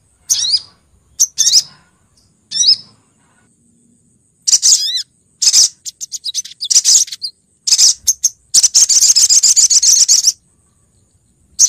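Female olive-backed sunbird (sogok ontong) calling: short groups of high, quickly gliding chirps separated by pauses, then a rapid trill lasting almost two seconds near the end.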